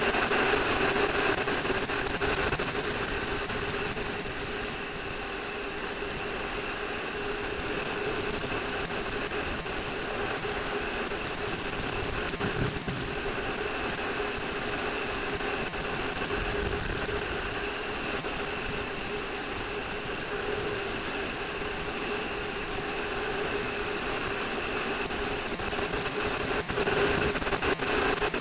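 A vehicle engine running at a steady speed, with a constant drone and a haze of wind noise over it.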